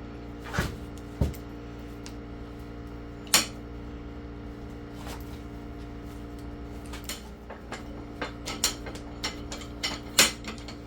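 Scattered metallic clinks and knocks from a Yost 34C cast-iron combination vise as its lead screw is turned to open and close the jaws, coming more often toward the end, over a steady low hum.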